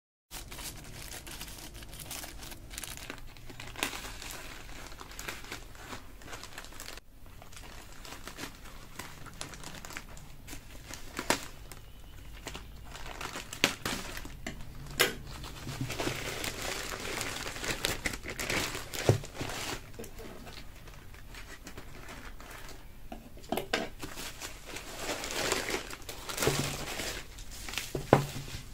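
Packaging being handled and unwrapped: ongoing crinkling and rustling with many scattered clicks and taps, busiest in two stretches about halfway through and near the end.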